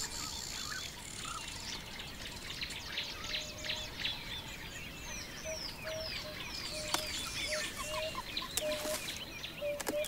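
Many birds chirping and whistling in short, quick calls, with a short lower note repeating a little faster than once a second from about halfway.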